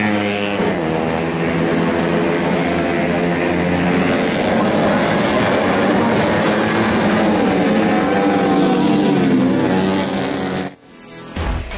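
Several 125cc four-stroke underbone race motorcycles running at high revs, their engine notes overlapping and rising and falling as they race past. The sound cuts off abruptly near the end.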